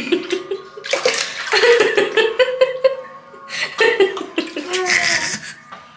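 A baby splashing and slapping water with its hands in a small plastic tub, with water sloshing. The baby vocalises in two high, wavering stretches over the splashing.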